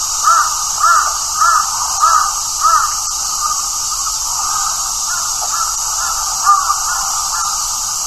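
A crow cawing: five short caws in quick succession, then a few fainter caws in the second half, over a steady high hiss.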